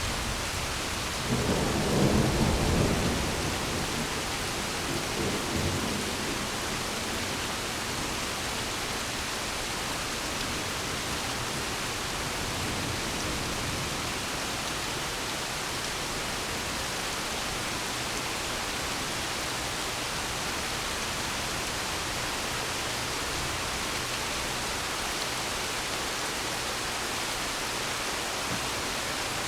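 Steady rain falling during a thunderstorm, with a loud roll of thunder about a second in that rumbles for around two seconds, a weaker rumble a few seconds later, and then only the hiss of the rain.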